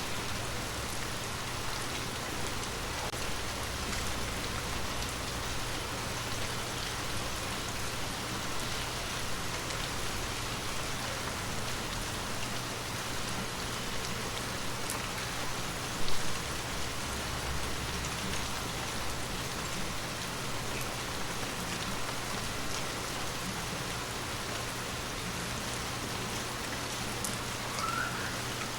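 Water droplets pattering on glass, a steady dense patter with scattered small taps, over a faint steady low hum. One louder tap about halfway through.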